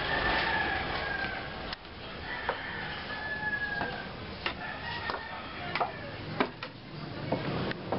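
A rooster crowing, two or three long calls in the first five seconds, the first one the loudest. Footsteps knock on wooden stairs and floor through the second half.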